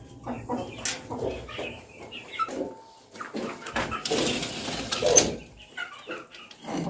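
Chickens clucking in short, irregular calls, with a rustling burst about four seconds in that lasts a little over a second.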